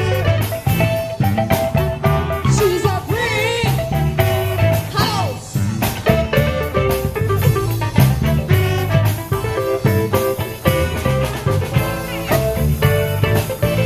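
Live band playing an instrumental funk groove, with electric guitar, bass and drum kit keeping a steady beat. A few wavering, sliding lead notes come in a few seconds in.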